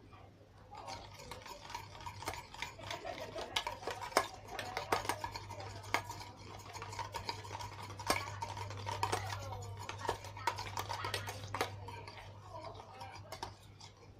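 Stirring a thick mix of dish soap and hand lotion for slime, with irregular scraping and clicking of the utensil against the container, over a steady low hum.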